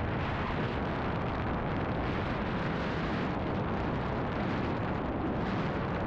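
Wind buffeting the microphone of an action camera on a selfie stick, held up in the airflow under a parasail: a steady, loud rush with heavy rumble.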